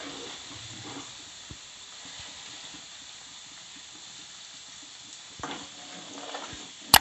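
Coconut-milk curds sizzling in their own released oil in a pan, stirred and scooped with a metal ladle, at the stage where the fat has turned to oil. A steady sizzle with small ticks and scrapes, and a sharp knock near the end.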